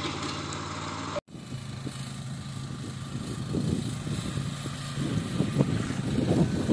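Small farm tractor engine running steadily while pulling a rotavator. After an abrupt cut about a second in, another small tractor's engine, working between crop rows, grows louder as it approaches.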